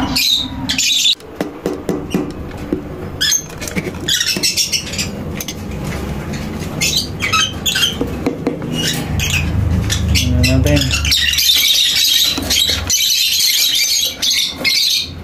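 African lovebirds calling: short high-pitched squawks and chirps come in scattered bursts, then thicken into dense, continuous chatter for the last few seconds. A low rumble runs under the calls for a few seconds past the middle.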